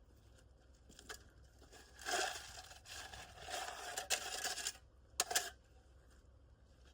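A rake dragging rocks across a gravel driveway: several stretches of scraping, with sharp clicks of stones knocking together.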